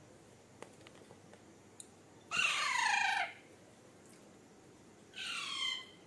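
Young Alexandrine parakeet giving two harsh squawks, the first about a second long and the second shorter near the end, each falling in pitch.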